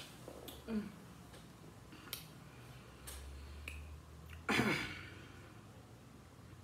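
Quiet table sounds while eating: a few light clicks of a utensil against a dish, with a louder short mouth sound about four and a half seconds in.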